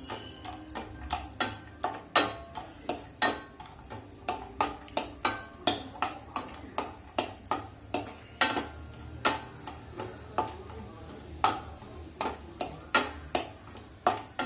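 Wooden spatula knocking and scraping against a non-stick frying pan while cashew and almond slivers are stirred in ghee: an irregular run of sharp knocks, about two to three a second.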